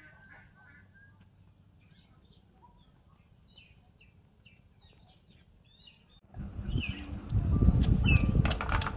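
Birds chirping faintly for about six seconds, then a wooden pestle pounding in a clay mortar starts suddenly. It comes as a quick run of loud thuds and knocks.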